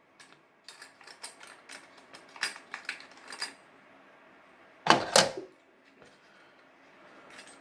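Light clicks and taps of razor blade holders being handled and lifted out of a razor set's wooden case, with one louder clack about five seconds in.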